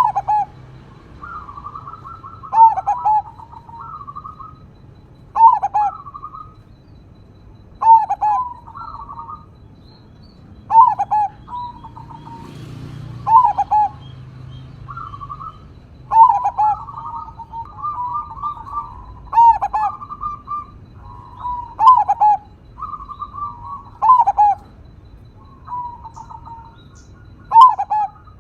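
Zebra dove (perkutut) cooing: a repeated phrase of quick trilled notes ending in a loud, lower coo, about every two and a half to three seconds.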